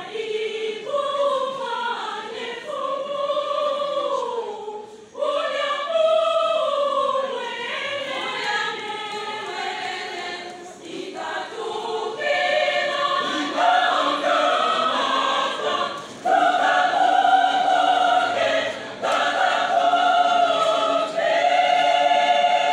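Mixed-voice church choir singing a hymn in parts, in phrases with short breaks between them, ending on long held chords.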